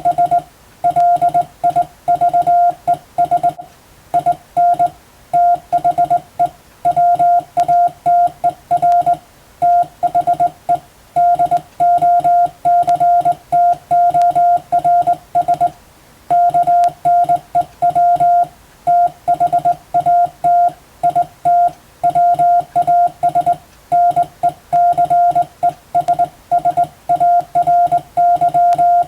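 Morse code as a single steady beep tone, keyed on and off in quick runs of short and long beeps with brief gaps between characters and words, spelling out English (international) Morse practice text.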